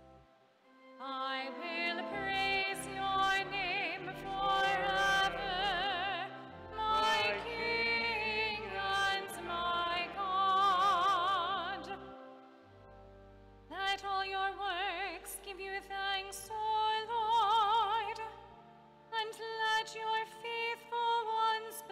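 A female cantor singing a psalm verse solo with wide vibrato over sustained accompaniment chords, the voice breaking off twice for a breath between phrases.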